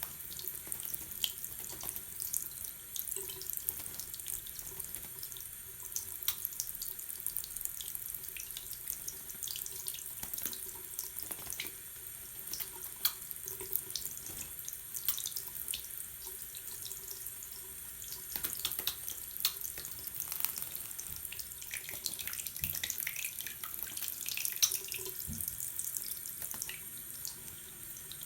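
Water running steadily, with frequent small splashes and drips.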